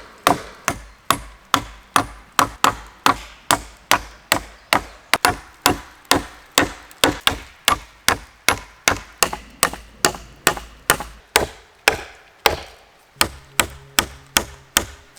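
Nails being hammered into wooden sticks: a steady run of sharp strikes, about two to three a second, with no break.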